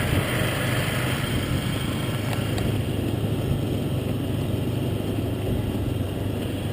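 A motor vehicle's engine running steadily at a low, even speed, with a constant rush of road and wind noise.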